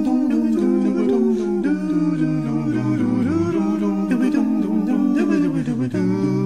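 Background music: voices humming a melody together in harmony, without words.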